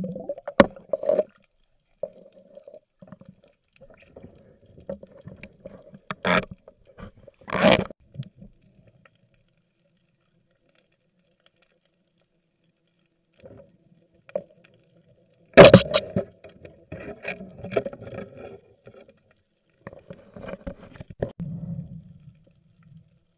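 Underwater sound picked up by a diver's camera: muffled rumbling and bubbling water, with sharp knocks about six, eight and sixteen seconds in. The knock near sixteen seconds is the loudest, and the sound drops out for a few seconds in the middle.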